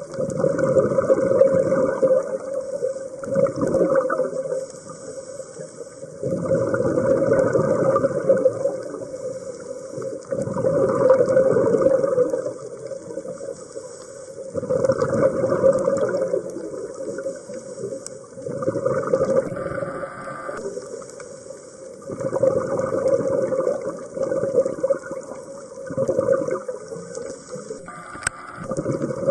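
Underwater breathing through a scuba regulator: an exhaled rush of gurgling bubbles comes every three to four seconds, with quieter inhalations between.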